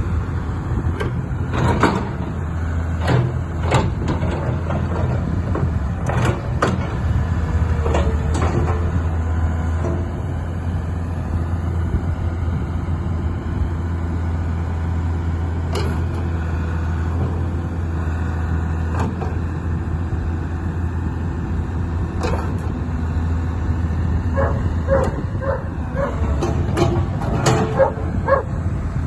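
Diesel engine of a 1996 Caterpillar 315L track excavator running steadily, with scattered sharp metallic knocks and clanks, more of them near the end.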